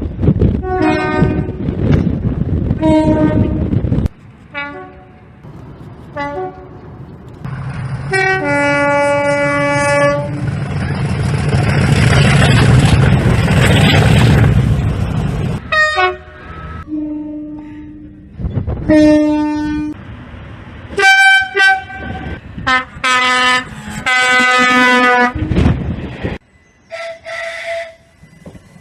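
Train horns sounding in a rapid string of short and long blasts, jumping between high and low notes. Around the middle a train passes close by with a loud rushing rumble under a long horn note.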